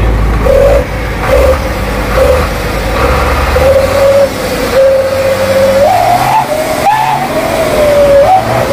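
Isuzu Giga 245 truck's diesel engine running, with a steady whine and low rumble. The whine briefly rises in pitch twice in the second half as the engine is revved.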